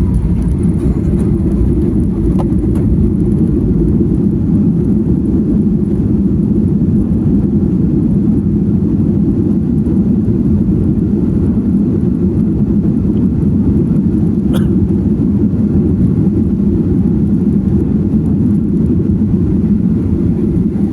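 Steady low rumble of a jet airliner heard from inside the cabin, engine and airflow noise around the landing, with a brief faint click about two-thirds of the way through.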